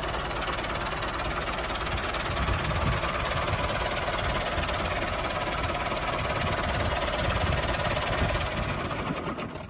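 Tractor engine running steadily with a rapid low chugging knock, at an even level, dropping away just before the end.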